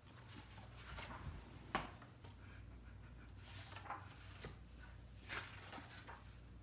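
Faint rustling and handling of paper as a book's pages are turned, with a few soft swishes and one sharper tap a little under two seconds in.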